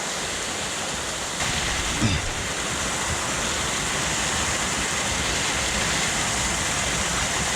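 Waterfall rushing steadily, a dense even hiss of falling water that gets louder and brighter about a second and a half in.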